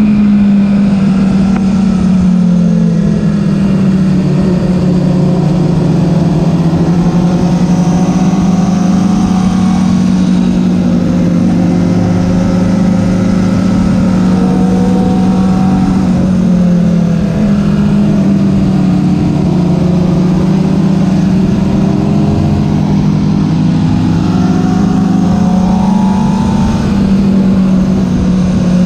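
Sport motorcycle's engine running at road speed, heard from the bike itself. Its pitch sags and rises gently with the throttle, dipping around the middle and climbing again near the end.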